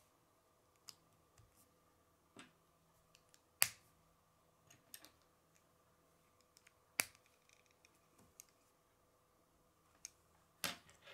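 Plastic K'nex rods and connectors clicking as they are snapped together by hand: a handful of separate sharp clicks, with two loud ones about a third and two thirds of the way through and a quick cluster near the end.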